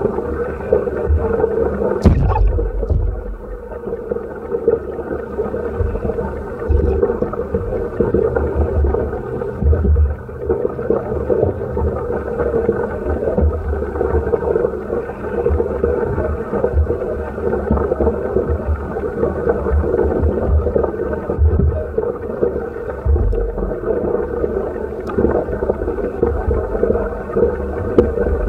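Muffled underwater sound picked up through a waterproof camera housing: a steady dull rumble with irregular low thumps, and one sharp click about two seconds in.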